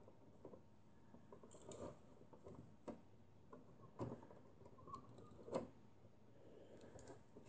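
Faint, irregular plastic clicks from a hand-cranked 3D-printed turntable as its knob is turned to step the object round.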